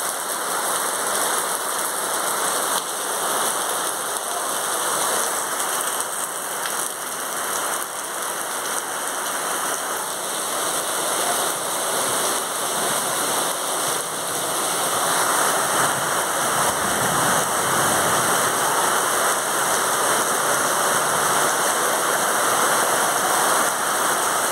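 Rain falling steadily, an even hiss that grows a little louder about halfway through.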